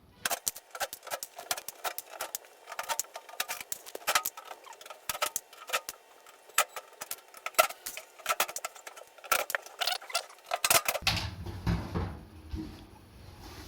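An irregular run of sharp clicks and taps, several a second, from work on the clothes dryer as it is taken apart; about eleven seconds in they give way to a lower, duller handling noise.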